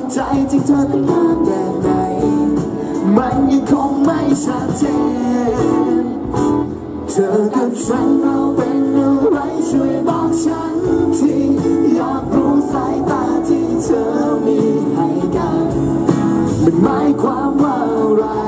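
Live pop music over stage loudspeakers: a backing band track with a male voice singing into a handheld microphone.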